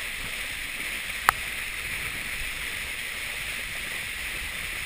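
Steady rushing noise of a ski boat under way, its engine running and its wake churning, with one sharp click about a second in.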